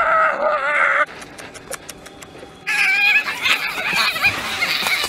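A man screams: a long, wavering yell that cuts off about a second in. After a short lull with a few faint clicks, a higher, wavering shriek starts near the middle and carries on.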